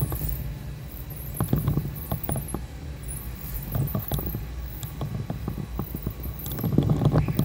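Woodland sound played five times fast: a rapid patter of small taps and rustles, with high, squeaky chirps above and a steady low rumble underneath.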